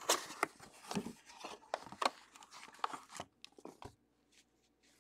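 Cardboard trading-card box being handled and opened by hand: irregular light taps, scrapes and rustles, dying away after about three and a half seconds.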